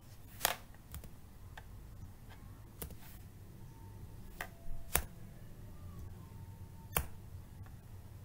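Computer keyboard keys being typed, about eight sharp clicks at irregular intervals with pauses between them, over a low steady hum.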